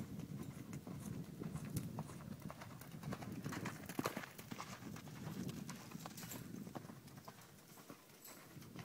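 Hoofbeats of a horse loping on soft sand, a run of dull thuds with sharp clicks, growing louder as the horse passes close by about four seconds in.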